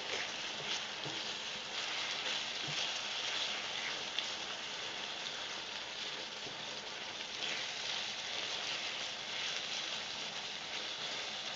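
Seafood and vegetable stir-fry sizzling steadily in oil in a pan, with faint crackles here and there.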